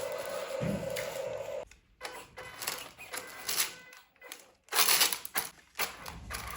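A small electric motor of a radio-controlled model whines steadily and cuts off suddenly a little under two seconds in. Irregular clicking and rattling of small plastic and metal parts follows, loudest about five seconds in.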